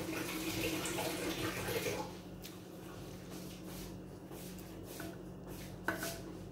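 Water running from a kitchen tap, shut off about two seconds in. Then a steady low hum is left, with a light knock near the end.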